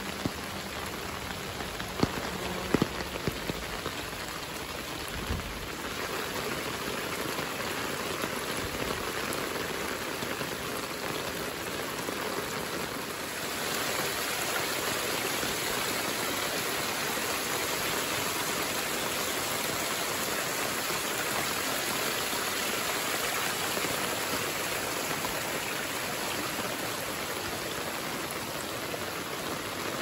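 Steady spring rain falling on the undergrowth, an even hiss with a few sharp drop taps in the first few seconds. About halfway through the hiss grows a little louder and brighter as a small trickle of runoff water splashing over stones joins in.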